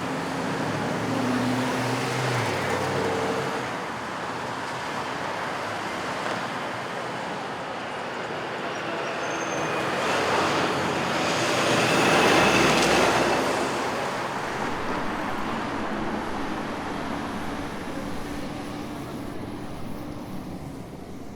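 City traffic noise: a steady wash of passing vehicles with a low engine hum. It swells as a vehicle passes close about halfway through, then slowly fades.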